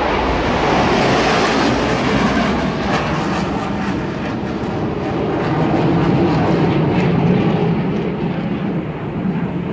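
Jet engines of a formation of USAF Thunderbirds F-16 Fighting Falcons flying past, a loud continuous rushing roar. It is hissiest in the first few seconds, then settles into a deeper rumble.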